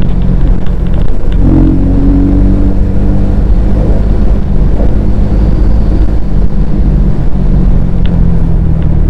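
Bajaj Pulsar N250's single-cylinder engine and exhaust running steadily and loud, with a slight change in pitch about a second and a half in.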